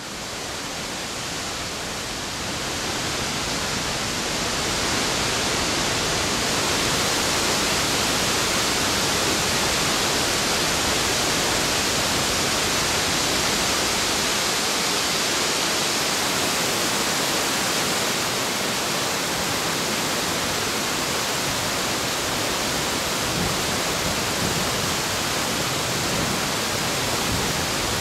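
Steady, dense rush of falling water from a waterfall. It fades in and swells over the first few seconds, then holds even.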